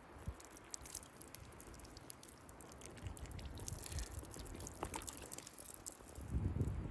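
Water dripping and splashing onto a muddy quartz crystal held in a wet hand as it is rinsed clean: a run of small, irregular ticks. A brief low bump near the end.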